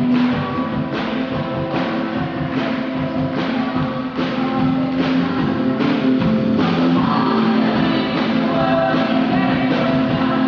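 Live rock band with singers playing a song: a steady drum beat about once every 0.8 s under guitar and voices, with the singing coming more to the front after about six seconds.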